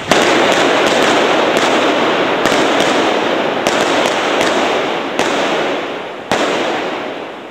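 Rapid gunfire from prop guns firing blanks, many shots in quick succession echoing between city buildings. It starts suddenly, slowly dies away, and a last single shot comes about six seconds in.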